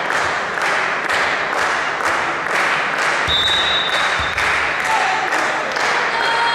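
Volleyball crowd clapping and chanting in a steady rhythm, about two claps a second, with a short high whistle about three seconds in.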